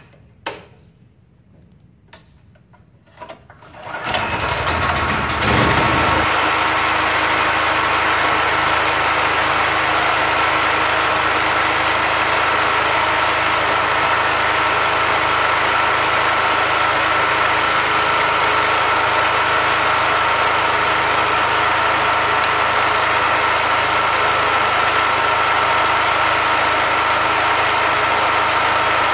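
A few sharp clicks, then about four seconds in the Multipro GG 3900 portable generator's engine starts and within two seconds settles into steady running with a constant high tone.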